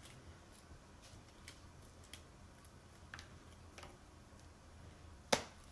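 Oreo cookies being crushed by hand on a plastic cutting board: faint, scattered little cracks and clicks, with one sharp snap near the end.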